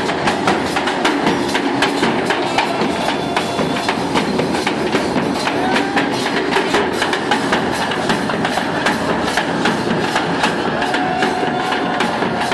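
Chinchinero's bass drum (bomba) and the cymbal mounted on top of it, played by a dancing street drummer: a quick, even rhythm of sharp drum and cymbal strikes, with crowd chatter underneath.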